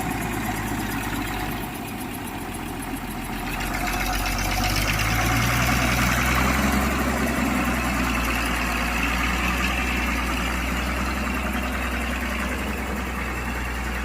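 Motor grader's diesel engine running steadily as it pushes and levels soil, dipping briefly and then growing louder about four seconds in.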